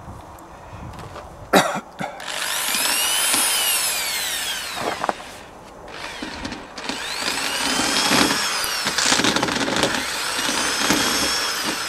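Bosch drill driving an easy-out screw-extractor bit into the wooden plank round an old bronze screw, the motor running in three long bursts whose pitch rises and then falls in each. A sharp click comes just before the first burst.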